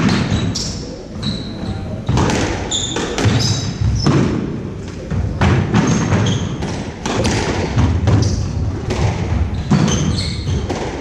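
Squash rally: the rubber ball struck by rackets and smacking off the court walls and wooden floor, a sharp echoing hit about once a second. Short high squeaks from court shoes on the wooden floor come between the hits.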